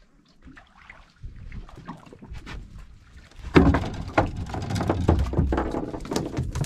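Freshly caught mackerel flapping and knocking against the boat's deck and fittings, a fast irregular clatter that starts suddenly about three and a half seconds in, after a few quieter knocks from the line and rod being handled.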